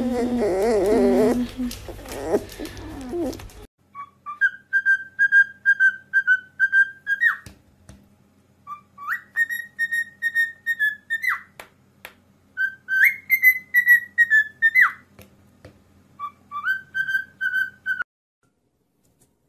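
Cockatiel whistling a tune in four phrases of quick, high notes held near one pitch, each phrase opening with an upward slide. In the first two seconds a sleeping puppy gives a short wavering whine.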